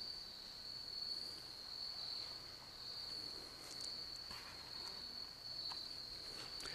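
Steady chorus of insects in the woods, one unbroken high-pitched buzzing tone, with a few faint ticks and rustles in the second half.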